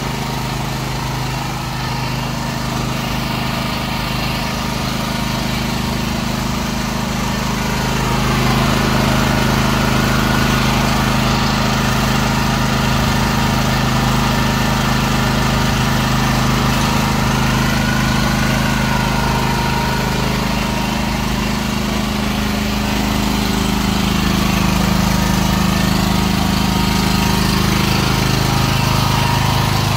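Hisaki LP6500B generator's 420cc single-cylinder four-stroke OHV engine running steadily just after starting; it gets a little louder about eight seconds in.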